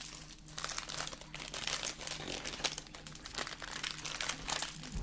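A wrapped hard candy being unwrapped: the wrapper crinkles in a continuous run of small, quick crackles.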